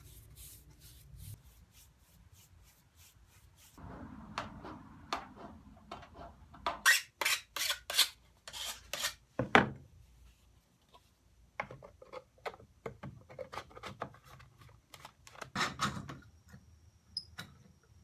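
Hand work on wood: a series of rubbing, rasping strokes, faint at first and loudest from about four to ten seconds in, then lighter scrapes and clicks.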